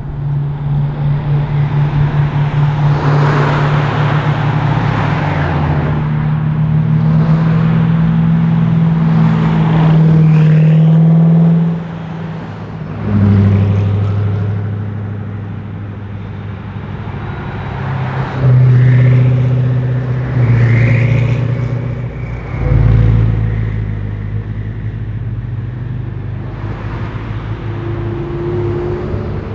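Several high-performance cars driving past one after another, engines running and revving, their pitch stepping and gliding as they accelerate and shift. The loudest passes come about ten, eighteen and twenty-two seconds in.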